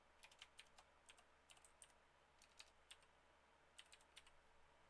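Faint, irregular keystrokes on a computer keyboard as a short name is typed and corrected with backspace.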